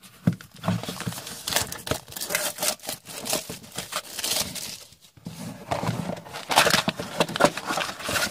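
Clear plastic shrink-wrap being torn and crinkled off a cardboard trading-card box, in two bouts with a short lull midway, as the box is handled and its lid lifted.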